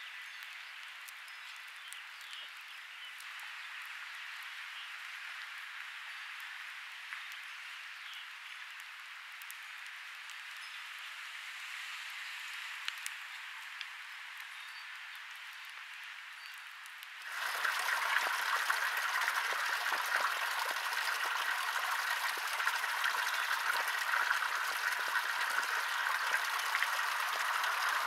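A steady hiss with fine crackling, with nothing deep in it. About two-thirds of the way through it suddenly grows louder and fuller.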